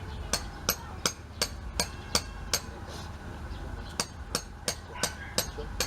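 Hammer strikes in a steady rhythm, about three sharp, clinking blows a second, pausing briefly midway, as fence work goes on.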